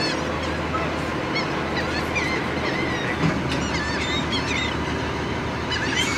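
A flock of gulls calling over the water, many short squawks overlapping, over the steady drone of the tour boat's engine.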